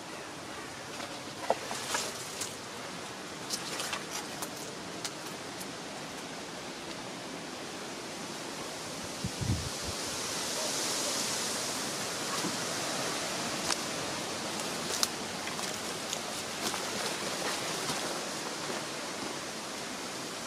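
Steady woodland hiss of leaves rustling in a breeze, swelling a little about halfway through, with scattered light clicks and crunches of footsteps on leaf litter and gravel.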